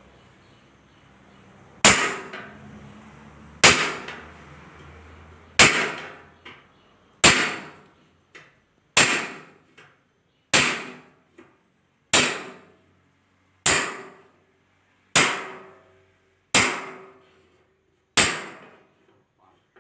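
A hammer striking the sheet metal of a car's engine hood as air vents are cut into it. The blows are steady and evenly paced, about one every one and a half seconds, each ringing briefly, with a few lighter taps in between.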